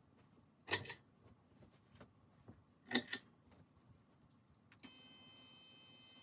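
Two pairs of sharp clicks, about two seconds apart, with a few fainter ticks between, then a click near the end followed by a faint steady hum of several level tones.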